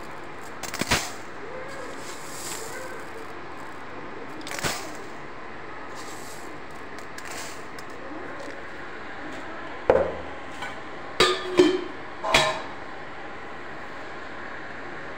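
Uncooked rice poured by the handful onto a steel plate: short rattling clatters of grains and metal, a few scattered ones and then several close together, over a steady background hiss.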